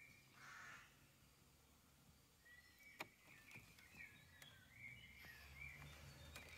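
Near silence: faint outdoor background with distant bird chirping and one sharp faint click about three seconds in.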